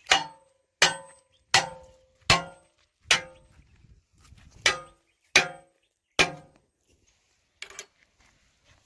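Metal struck over and over in an even rhythm, about one clank every three-quarters of a second, each clank ringing briefly. Two fainter knocks follow near the end.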